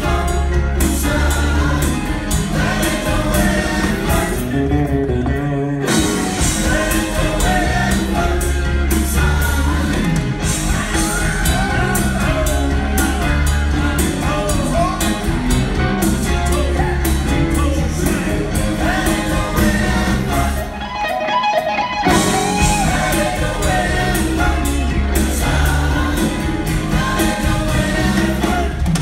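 Live rock band playing: electric guitars, bass, keyboards and drum kit, with singing over the top. The band drops out briefly twice, about five seconds in and again around twenty-one seconds, in short stop-time breaks.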